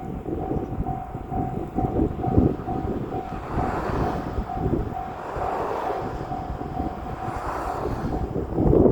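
JR Shikoku 8000 series limited express electric train passing a level crossing, its wheels clattering over the rails in a low rumble. Behind it the crossing's warning bell rings with a steady, evenly repeated tone.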